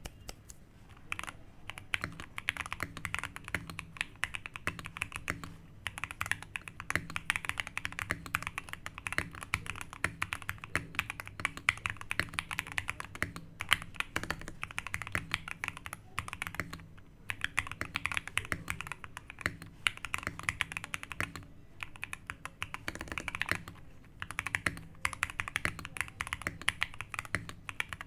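Fast typing on a custom 60% mechanical keyboard with Gateron Speed Silver Pro linear switches, PBT keycaps and lubed stabilizers, its O-ring-mounted steel plate and PCB in a wooden case. A steady stream of key clacks, broken by a few short pauses.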